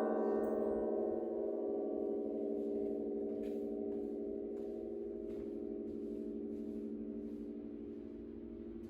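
Church bells' last ring dying away: a low, wavering hum from the heavier bells, slowly fading after the final strikes.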